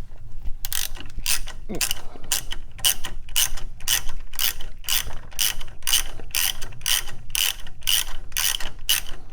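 Ratchet wrench clicking in a steady back-and-forth rhythm, about two to three strokes a second, snugging down a Ford Model A manifold nut just enough to hold the manifold in place, not yet torqued.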